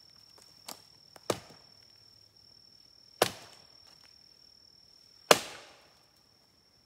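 Three hard knocks of a thick stick struck on wood, about two seconds apart, after a lighter tap. The last knock is the loudest and rings out briefly. It is a three-strike wood knock, knocked as a signal into the woods.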